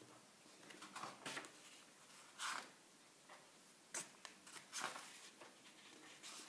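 Paper pages of a large bound book being turned by hand: several faint, short swishes and rustles.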